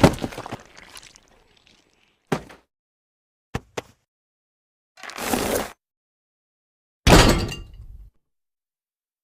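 A run of separate cartoon sound effects with silence between them: a crash dying away, a short thud, two quick clicks, a noisy burst, then a loud crash near the end.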